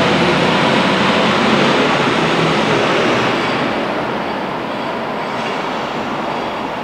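Loud, steady rushing noise of a passing vehicle, fading slowly over the second half.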